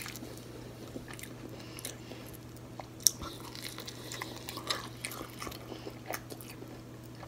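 Close-up chewing and biting of breaded fried seafood, with soft scattered crunches and clicks and one sharper click about three seconds in. A steady low hum sits underneath.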